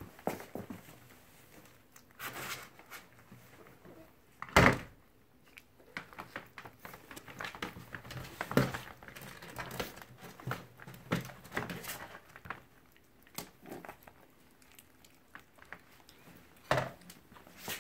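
Chihuahua-mix puppies play-wrestling on blankets and puppy pads in a plastic kiddie pool: scattered rustling and scratching of paws and bodies, with a sharp thump about four and a half seconds in and another near the end.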